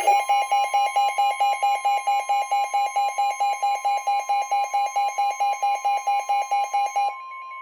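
A weather radio receiver's alarm sounding a rapid pulsing beep, about five pulses a second, which stops about seven seconds in. Under it runs the steady NOAA Weather Radio 1050 Hz warning alarm tone, which announces a flash flood warning.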